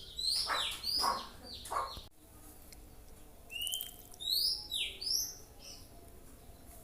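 Songbird whistling short, curved, high notes: a few in the first two seconds over lower sounds, then a quick run of four or five whistles about halfway through. There is a sharp click just after two seconds in.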